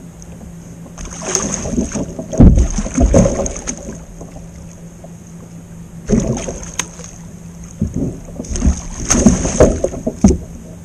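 Water splashing and sloshing beside a kayak in three spells, with a few dull thuds on the hull, as a hooked blue catfish is worked up alongside the boat.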